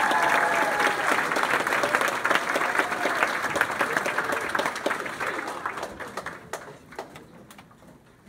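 Audience applauding, with a few voices mixed in at first. The applause dies away over the last few seconds into a few scattered claps.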